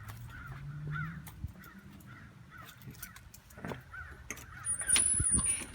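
Birds calling outside in a quick string of short, repeated calls. About five seconds in there is a louder burst of handling noise.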